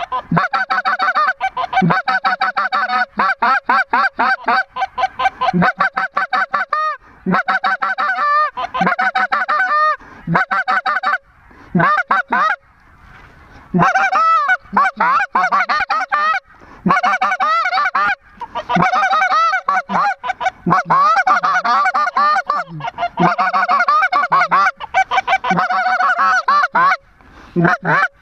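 Several hand-blown goose calls imitating lesser Canada geese, loud and close, sounding rapid, overlapping strings of short honks and clucks, with a few brief pauses.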